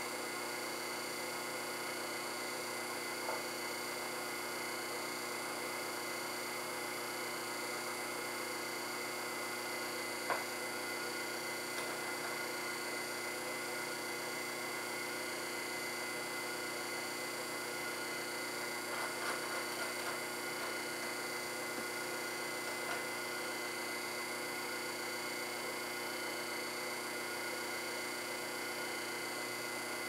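Taig benchtop metal lathe running steadily, giving a constant hum and whine at a few fixed pitches. A few light clicks come through as the tooling is handled.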